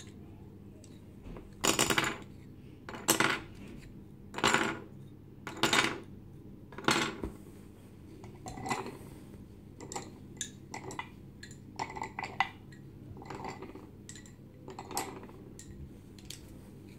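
Wooden Montessori spindles knocking into the compartments of a wooden spindle box, one at a time: five sharp wooden knocks a little over a second apart, then lighter, quicker clicks of spindles being handled.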